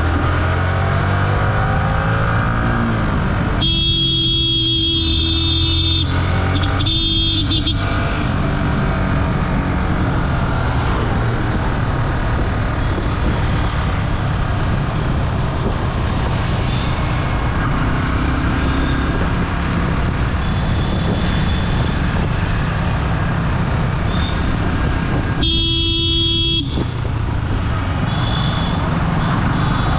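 Road traffic heard from a moving motorcycle: engine and road noise running steadily. A vehicle horn honks for about two seconds around four seconds in, briefly again a second later, and once more near the end.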